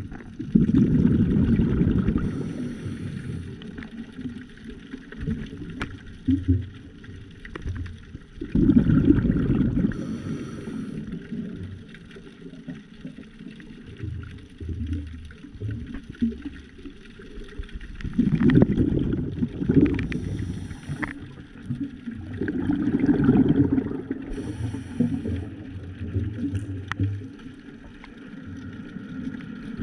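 A scuba diver breathing through a regulator, heard underwater: about four bursts of exhaled bubbles, each a couple of seconds long and several seconds apart. Each has a short hiss from the regulator near its end.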